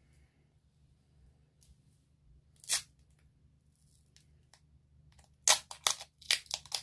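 Heavy-duty duct tape being pulled off the roll in short rips: one brief rip a little under a third of the way in, then a quick run of rips over the last second and a half.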